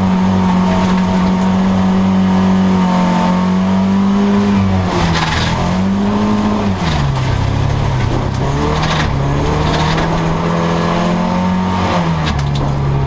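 Dirt-track race car's engine heard from inside its stripped cabin, held at steady high revs, dipping and picking up again about five seconds in, then running at lower revs from about seven seconds on and easing off once more near the end. A few sharp knocks and clatters cut through.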